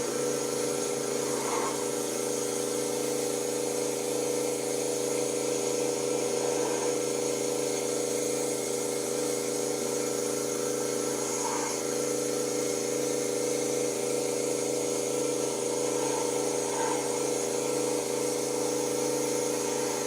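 Pressure washer running steadily, its motor and pump giving a constant hum under the hiss of the high-pressure water spray.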